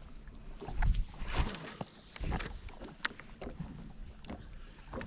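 Sounds of a small fishing boat sitting on the water: low thumps against the hull about a second in and again near two and a half seconds, and a few sharp clicks and knocks of gear being handled in the boat.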